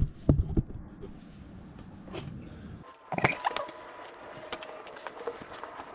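Scattered metallic clicks and knocks from a wrench working the front oil drain plug on a Honda VTX 1300S engine, with an abrupt change of background about three seconds in.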